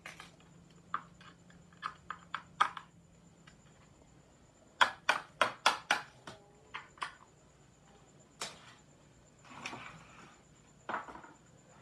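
Sharp clicks and knocks, scattered at first, then a quick run of about six loud knocks around the middle, with softer rustling near the end.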